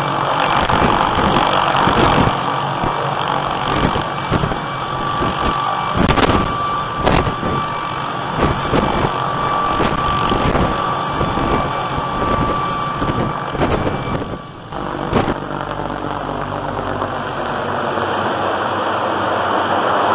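Helicopter hovering close overhead: steady rotor and engine noise with a high turbine whine held on one pitch, and irregular sharp knocks through the first part. After a brief dip about three-quarters of the way through, the whine drops out and a smoother rotor noise carries on.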